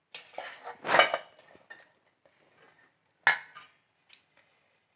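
Flour-coated corn kernels tipped and scraped into a stainless steel mesh strainer, with metal clattering in the first second or so. This is followed by one sharp metal clink a little after three seconds as the strainer is lifted to sift off the loose flour.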